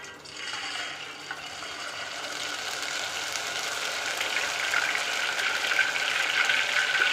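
Ghewar batter poured in a thin stream from a squeeze bottle into hot desi ghee, sizzling and bubbling. The sizzle starts as the batter hits the ghee and grows steadily louder as more batter goes in and the ghee froths up.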